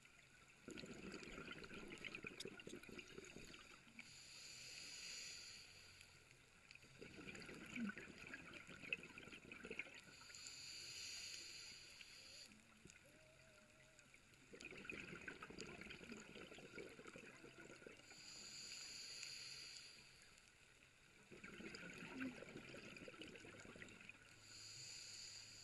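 Faint scuba breathing through a regulator underwater: four slow breath cycles, each a couple of seconds of hissing inhale and about three seconds of bubbling exhale.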